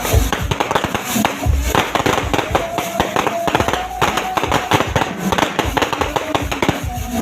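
Many fireworks and firecrackers going off at once: a dense, unbroken run of crackling pops with a few deep booms, about the first and second seconds in.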